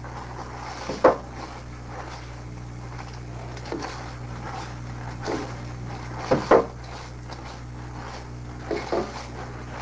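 A grain grinder being handled: a few irregular knocks and clunks, the loudest at about one second in and a double knock past the middle, over a steady low hum.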